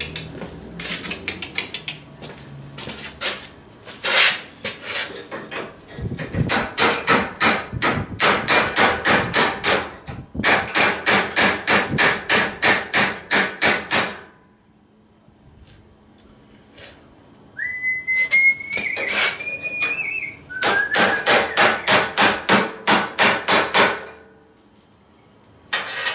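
Hammer striking metal on a steel exhaust pipe, in quick runs of blows about four or five a second with pauses between the runs. A short rising whistle sounds about two-thirds of the way in, between runs.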